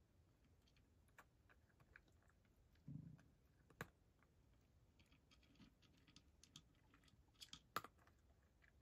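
A cat eating from a tray: faint, irregular crunching clicks as it chews, with two sharper cracks near four and eight seconds in and a soft low thump about three seconds in.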